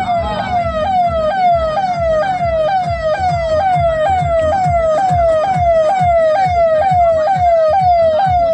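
Electronic siren in a fast, continuous yelp: the pitch jumps up and slides down a little over twice a second, with a low pulse under each cycle.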